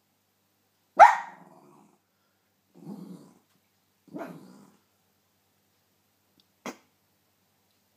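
Cairn terrier barking: one sharp, loud bark about a second in, then two quieter, lower calls about three and four seconds in.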